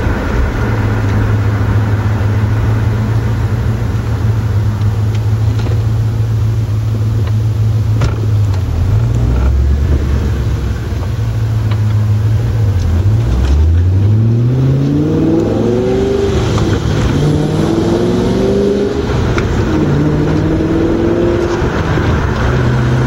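2005 Cadillac CTS-V's LS6 V8 through a custom 3-inch exhaust with SLP Loud Mouth mufflers, heard from inside the cabin. It drones steadily at first, then a bit over halfway through pulls hard with a rising pitch through about three upshifts, the pitch dropping at each shift, and settles back to a steady note near the end.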